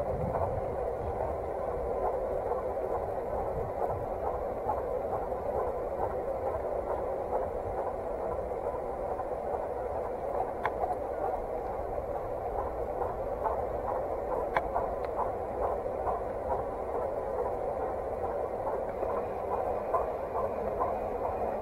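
Steady rushing noise of a bicycle ride on a paved path: tyres rolling on asphalt and wind on the microphone, with faint irregular ticks throughout.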